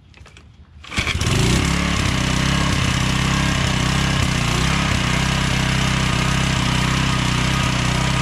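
A Toro edger's 2 hp Suzuki four-stroke engine is pull-started and catches at once about a second in, then runs steadily. It is running on a non-original Briggs & Stratton plastic carburetor adapted to its intake manifold.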